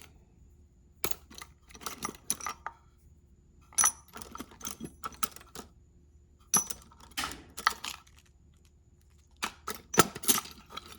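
Small steel machinist's tools clinking and rattling against each other as they are picked up and sorted in a toolbox drawer, in four short clusters of clicks with pauses between.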